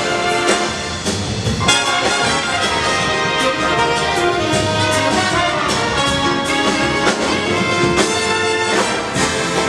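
Big band playing live: trumpet and trombone section with a drum kit keeping time.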